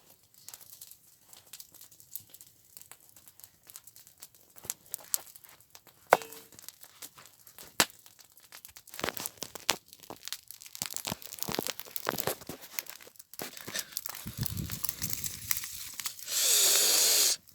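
Campfire burning paper: scattered crackles, snaps and rustling. Near the end there is about a second of loud rushing noise.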